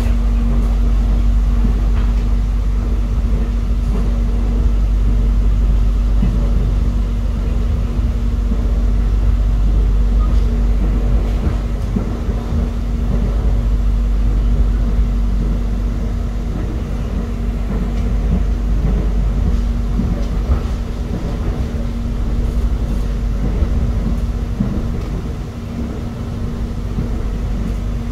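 Electric airport train running along the line, heard inside the carriage: a steady deep rumble from the wheels and running gear, with a constant hum held underneath.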